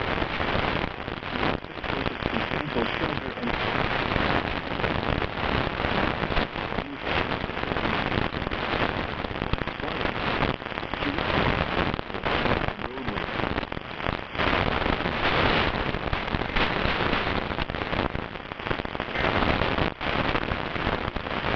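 Continuous crackling hiss with a flickering, fluctuating level: static on a weather-radio receiver, with no broadcast voice.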